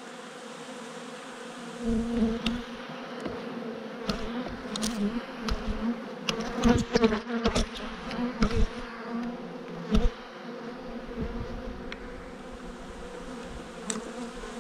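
Honeybee colony buzzing steadily from an open hive, a continuous hum. Over it come scattered sharp knocks and scrapes of a hive tool against the wooden frames, clustered about halfway through, with one loud knock a few seconds later.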